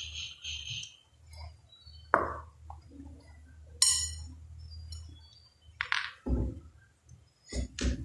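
Rolling pin and hands working chapati dough on a foil sheet: a quick rhythmic rubbing at the start, then scattered knocks, a few sharp clinks and low thumps as the pin is handled and set down.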